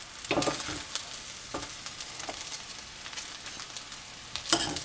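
Fried rice still sizzling in a hot pan just after the heat is turned off, with a spatula scraping and knocking against it a few times, loudest about half a second in and again near the end.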